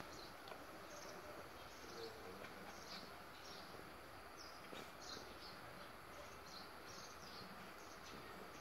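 Faint background birdsong: short high chirps repeating every half-second or so over a steady low hiss of ambient noise.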